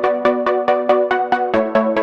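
Electronic background music: a synthesizer playing a fast, even run of plucked notes, about eight a second, over held chords that change about one and a half seconds in.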